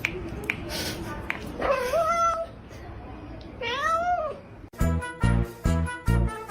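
A domestic cat meowing twice: the first call rises and then holds, the second rises and falls. Near the end the sound cuts abruptly to music with a steady beat.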